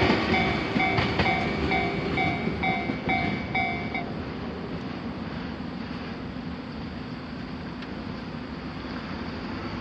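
Japanese railroad crossing alarm ringing in a steady beat, about three strikes a second, then stopping about four seconds in. Under it the rumble of a passing train fades away, leaving steady background noise.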